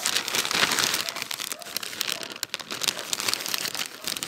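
Thin clear plastic sheet crinkling and rustling as it is gripped and shifted by hand, a continuous irregular crackle.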